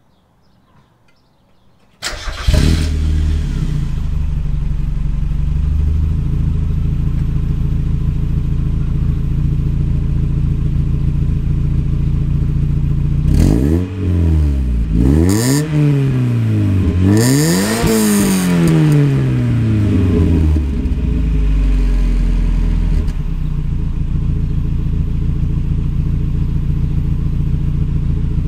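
A 1990 Mazda Miata's 1.6-litre four-cylinder engine running through a Car Make Corn V-III dual-tip exhaust, heard at the tailpipes. It comes in suddenly about two seconds in and idles steadily. Around the middle it is revved three times, each rising and falling in pitch, then it drops back to idle.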